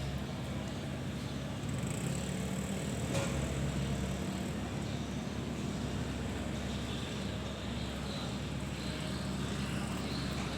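An engine running steadily with a low, even hum, typical of road-works machinery or a vehicle.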